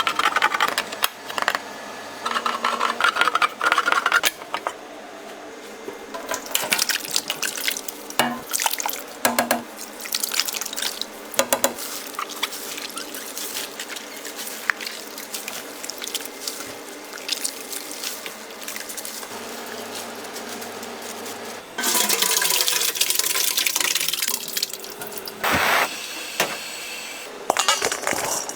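Kitchen food-prep sounds: scattered clicks and clatter of utensils and dishes, with a steady hiss of running water or food on a hot surface from about two-thirds of the way in.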